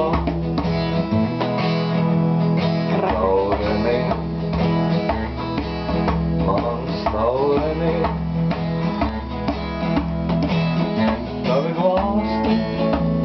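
Music: a song accompaniment with strummed acoustic guitar over steady low bass notes, a sliding melodic line coming back every few seconds.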